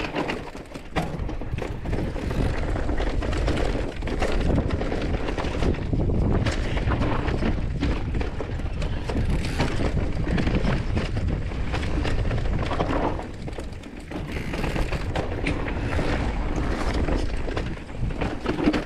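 Full-suspension Orbea Wild e-mountain bike descending a steep trail: tyres rumbling over rough ground, with constant knocks and rattles from the bike and wind buffeting the microphone.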